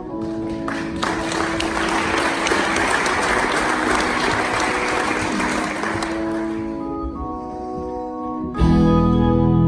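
A live band holds a ringing chord while an audience applauds from about a second in until around six seconds. Near the end, loud organ-sound chords from an electronic keyboard come in suddenly.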